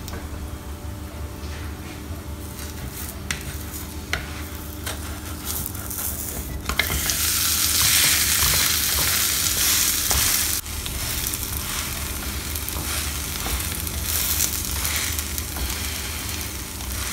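Gram-flour-battered bread slice frying in a little oil in a nonstick pan, with light taps and scrapes of a wooden spatula. About seven seconds in, the slice is flipped onto its vegetable-topped side and the sizzle jumps sharply louder for a few seconds, then settles to a steady fry.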